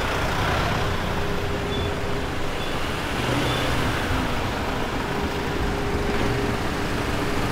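Street traffic: cars running along a town street, a steady low rumble without a break.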